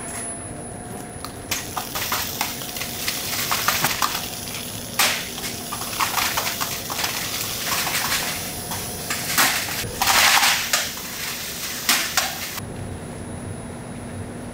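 Factory machinery running with a steady hum, and a dense, irregular crackling and clattering of crisp puffed rice snacks, with a short hiss about ten seconds in.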